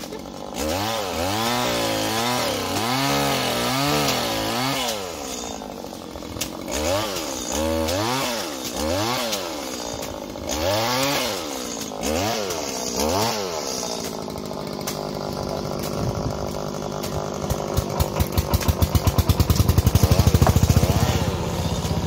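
Petrol pole saw pruning eucalyptus branches, its two-stroke engine revving up and dropping back about once a second as it cuts. About two-thirds in the revving stops and an engine settles into a steady idle, a fast even putter that grows louder near the end.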